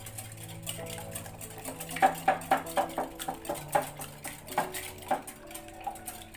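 Eggs with salt being beaten in a mixing bowl by hand, the utensil clicking rhythmically against the bowl about four times a second, strongest in the middle.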